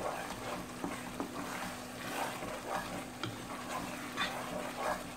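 Wooden spoon stirring saravle in bubbling sugar syrup in a pot: irregular soft scraping strokes over a steady simmering hiss.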